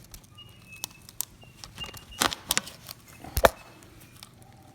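Handling noise from sandpaper and the metal drum clamp of a floor sander being worked by hand: scattered clicks and rustles, with two sharper knocks about two and a quarter and three and a half seconds in.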